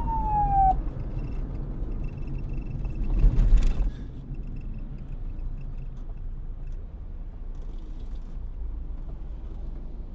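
A police car siren's wail falls in pitch and cuts off just under a second in, leaving a low vehicle rumble, with a brief louder rush about three seconds in.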